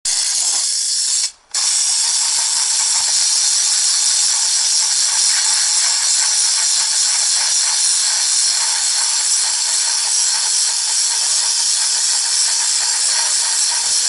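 Steam car-wash machine's hand-held wand blowing a continuous jet of hot steam, a loud, steady hiss that breaks off briefly about a second in.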